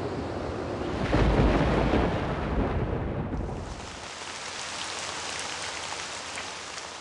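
Thunderstorm sound effect: steady rain with a deep roll of thunder starting about a second in. The thunder peaks and dies away over the next few seconds, leaving the rain hiss.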